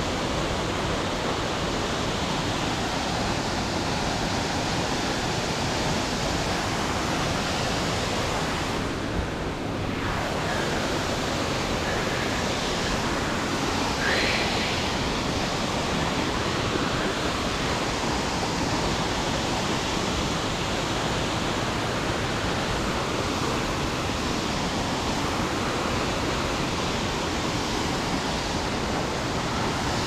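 Tall mountain waterfall: a steady rush of falling water that dips briefly about nine seconds in.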